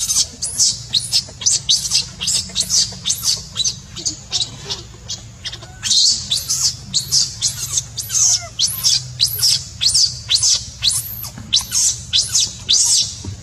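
Baby macaque crying: a rapid run of shrill, high-pitched squeaks, each falling in pitch, two or three a second, over a steady low hum.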